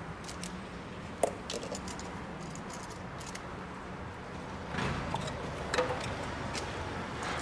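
Light clicks and rattles of spark plug wire pliers gripping and pulling the rubber boots of spark plug cables off the engine. The sharpest click comes about a second in and a louder stretch follows around five seconds in, over a steady low hum.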